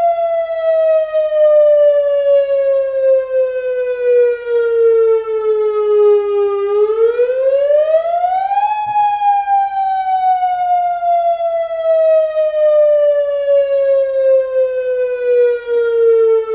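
Tsunami warning siren sounding one tone that glides slowly down in pitch, sweeps back up over about two seconds some seven seconds in, then glides slowly down again.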